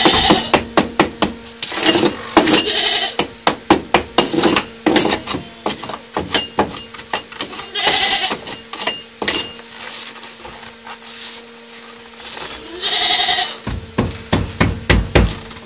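Goats bleating several times, with a run of sharp knocks and crunches in the first few seconds and a faint steady hum underneath.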